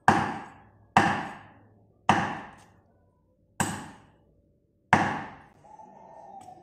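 Meat cleaver chopping pork ribs on a thick wooden chopping board: five heavy chops about a second apart, each dying away over a fraction of a second.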